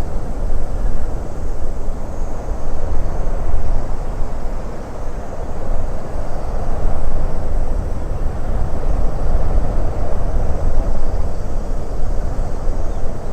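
Wind blowing across an open frozen lake: a continuous low rushing noise that swells and eases in gusts every few seconds.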